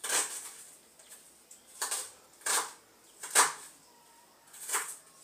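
Kitchen knife chopping onions on a wooden cutting board: about five separate chops at uneven intervals.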